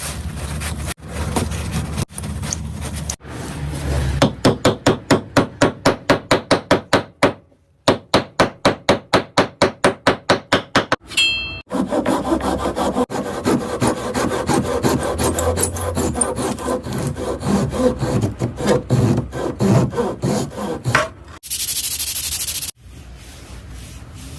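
A hand tool worked back and forth over wood in quick, even strokes, about four a second, pausing briefly partway through, then rougher, faster scraping. A short hiss comes near the end.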